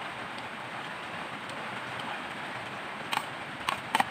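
Steady hissing background noise, with a few sharp clicks and knocks near the end as a plastic bowl is handled and lifted.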